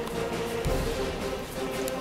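Background music with slow, held notes and a low thump a little past halfway through.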